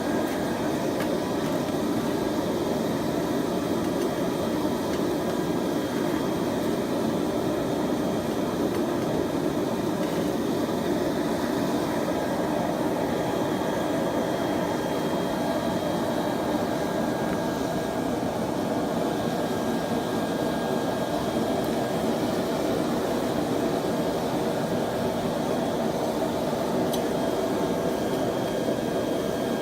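Propane forge burner running steadily, an even rushing noise with no hammer blows, as the billet is reheated to welding heat.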